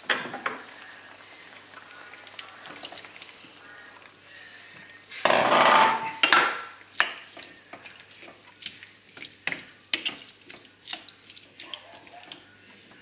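Wild boar stew simmering with a low sizzle in a frying pan. A little past five seconds in, chopped tomatoes are tipped in, giving a loud burst of sizzling that lasts about a second. After that a wooden spoon knocks and scrapes against the pan as the stew is stirred.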